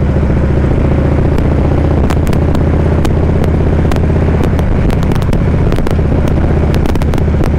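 2014 Harley-Davidson Ultra Classic Limited's V-twin engine running steadily while the bike cruises down the road, picked up by a helmet-mounted microphone along with wind and road noise.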